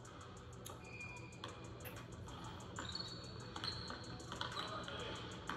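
Basketball game on a hardwood court: sneakers squeak in short high chirps several times, among light taps and thuds of play.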